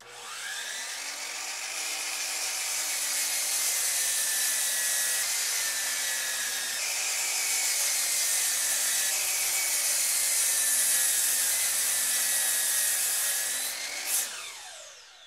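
DeWalt miter saw's motor whining up to speed and cutting through wood. Near the end it stops with a falling whine as the blade spins down.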